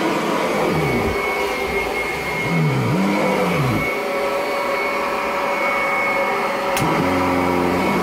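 Kirby Avalir upright vacuum running while being pushed over carpet: a steady high motor whine, with a lower pitch that swings up and down about three seconds in. A single click comes near the end, followed by a low steady hum. The machine's drive belt is worn and had been slipping.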